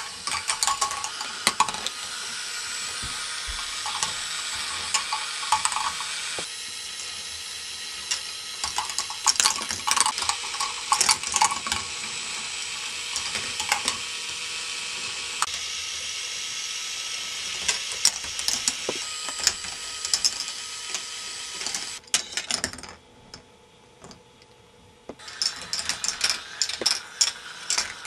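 K'nex ball machine running: motor-driven lifts whirring steadily while plastic balls click and clatter along the plastic tracks and track pieces. The steady whirr drops away for a couple of seconds near the end, leaving scattered clicks, then the clatter picks up again.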